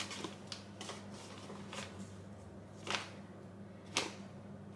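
Quiet rustling and a few light knocks as plain flour is weighed out into a mixing bowl, over a steady low hum.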